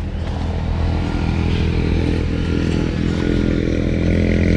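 A small engine running steadily at constant speed, slowly getting louder.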